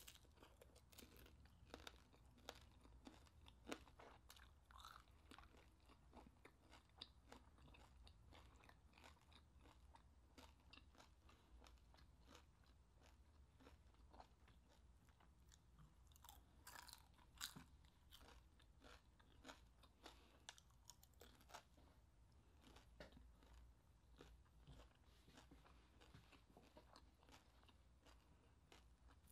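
Faint, close-up crunching and chewing of crispy deep-fried chicharon bulaklak (pork mesentery), many small crisp crunches, with a few louder bites about 17 seconds in.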